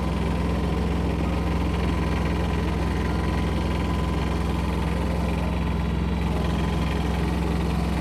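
An engine idling steadily with an even, unchanging note.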